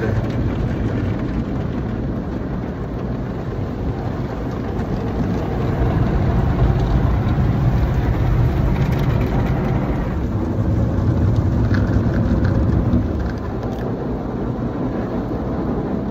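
Automatic car wash heard from inside the car's cabin: water spray and wash equipment drumming on the roof and windows, a steady rushing noise that grows louder partway through and eases off near the end.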